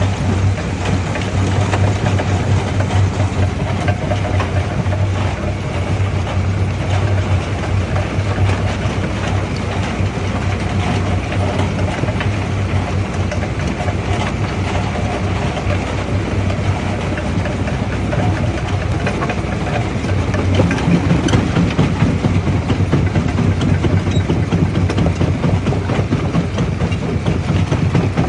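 Primary jaw crusher running and crushing stone: a steady low machine hum under a dense, continuous rattle and knocking of rock. About three-quarters of the way through, the low hum shifts up in pitch.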